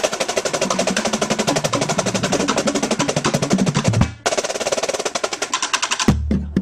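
Marching drumline playing: snare drums in fast, even rolls over deeper drum hits, breaking off briefly about four seconds in and again near the end.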